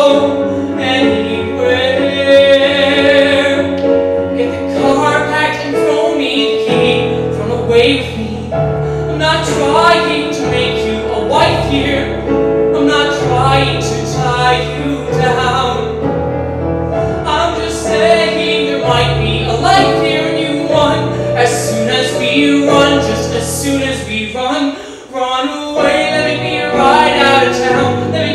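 Male voice singing a musical-theatre ballad over instrumental accompaniment with a moving bass line; the music dips briefly about 25 seconds in.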